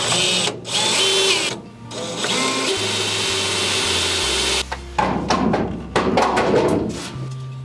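DeWalt cordless drill boring holes through car-body steel, run in several bursts with short stops. Near the end the bit chatters and catches unevenly before the drill stops.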